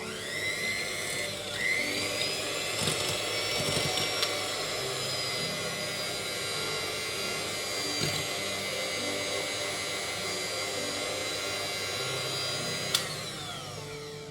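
Small electric kitchen mixer motor switched on, spinning up to a steady high whine, running for about thirteen seconds, then switched off with a click.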